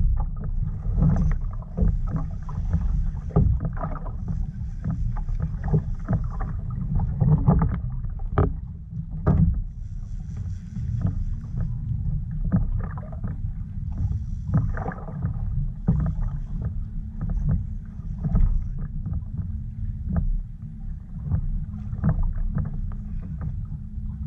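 Water lapping and slapping against a plastic fishing kayak's hull, with frequent small knocks, over a steady low rumble of wind on the microphone.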